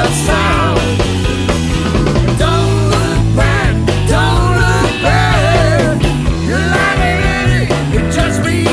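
Rock band music over a steady bass and beat, with a melodic lead line that bends up and down in pitch.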